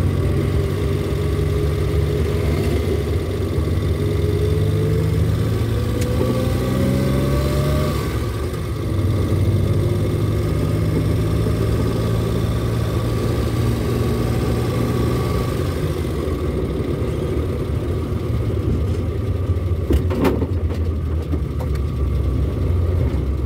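Vehicle engine and road noise heard from inside the cabin while driving. The engine note climbs for a few seconds as it accelerates, dips briefly, then runs steadily, with a sharp knock near the end.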